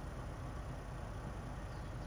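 Steady low rumble of idling vehicle engines, even throughout.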